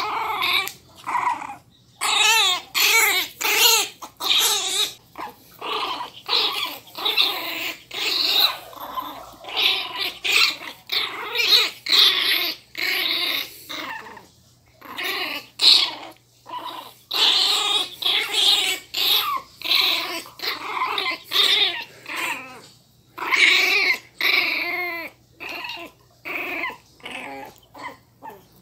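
Miniature pinscher puppies growling in play-fighting over a tug toy, a steady string of short growls about one or two a second.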